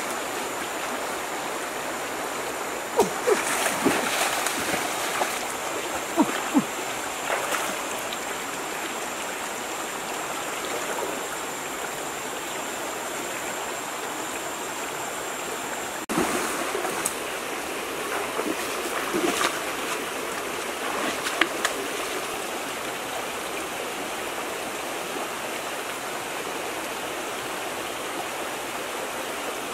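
Shallow, fast-flowing river, running high after heavy rain, rushing steadily over rocks, with a few short sharp splashes and knocks on top: a cluster a few seconds in and another about twenty seconds in.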